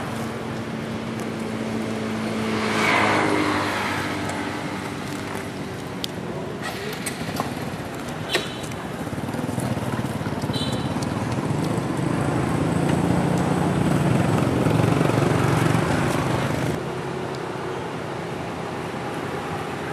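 Outdoor traffic noise: motor vehicles passing, one swelling and fading about three seconds in and a low engine rumble later that stops abruptly near the end, with a few short clicks and brief high chirps in between.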